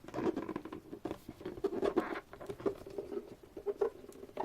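Tight-fitting cardboard album box lid being worked off by hand: a run of quick, irregular scratching and scraping as fingers and cardboard rub against each other.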